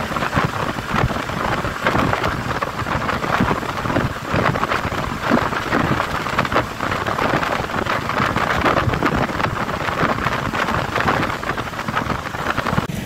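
Steady rushing wind buffeting the microphone of a motorcycle riding at highway speed, with road and engine noise underneath.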